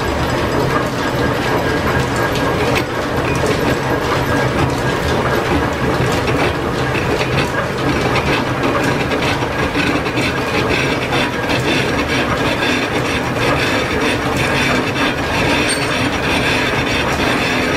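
Metal lathe running with a piston-ring casting spinning in its chuck: a steady, loud mechanical clatter of gearing and drive, with a dense rattle of rapid clicks.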